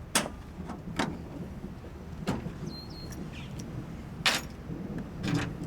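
Tailgate lock and tailgate hardware being handled: four separate sharp metal clicks and knocks, the last and loudest a longer clunk near the end, over a low steady rumble.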